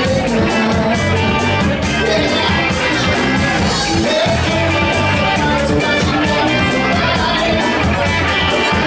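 Live band playing a rock song with drums, electric guitars and keyboard, over a steady drum beat, with a singer's vocals.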